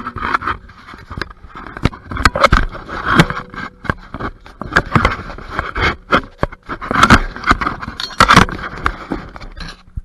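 Close, loud scraping and rustling with many sharp knocks and clicks, made by pulling the car's floor carpet and insulation back by hand.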